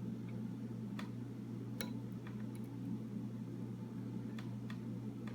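Faint, irregular ticks of a lock pick probing the pin stacks of a Master Lock No. 3 padlock, about seven light clicks over a few seconds, over a steady low hum.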